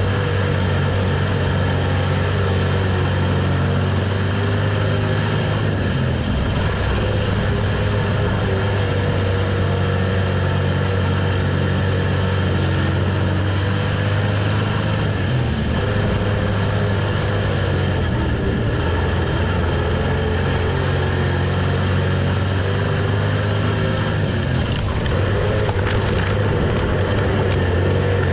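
Onboard sound of a dirt-track street stock race car's V8 engine running hard at racing speed, a loud, steady drone with brief small dips as the driver lifts for the corners.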